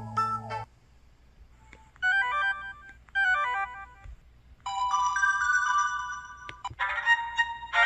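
Synthesized system tones from an EVER EV-W530 Audition phone's Qualcomm CMX 72-voice chip, recorded directly from the handset. One tone ends just after the start. A quick run of stepping notes follows and plays twice, then a longer held chime, and another fuller tone begins near the end.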